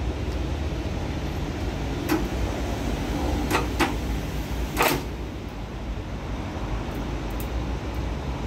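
Forklift engine running with a steady low rumble, with several sharp clunks from the machine: one about two seconds in, two close together about three and a half seconds in, and a louder one near five seconds.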